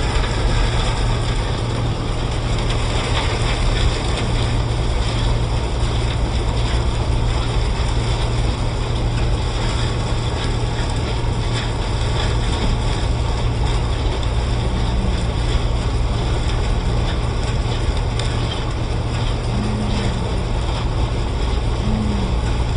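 John Deere 6620 turbo combine running steadily in the field, a constant low machine drone with a haze of mechanical noise over it.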